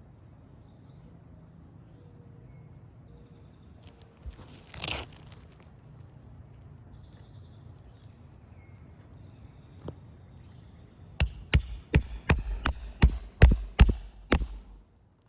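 A hammer driving roofing nails into asphalt shingles: a quick run of about a dozen sharp blows, roughly three a second, starting a little after the eleven-second mark. A brief rustle sounds near five seconds.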